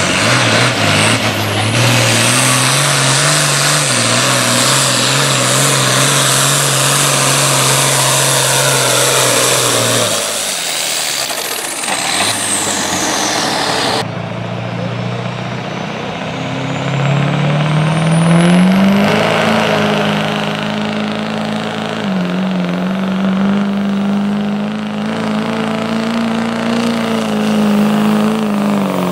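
An International Harvester farm tractor's engine runs hard and steady under load while dragging a pulling sled, then drops off near the halfway point as the pull ends. After a cut, a Chevrolet Silverado diesel pickup's engine revs up under load pulling the sled and holds high and steady.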